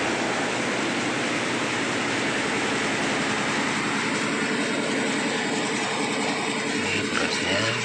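Rice milling machine running under load, driven by a serviced Yulin two-cylinder diesel engine: a dense, steady mechanical clatter and rumble.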